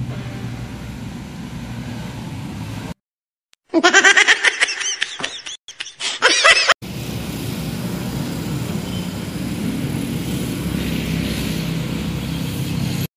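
Steady outdoor street noise with traffic running. About four seconds in comes a loud, wavering sound lasting about three seconds.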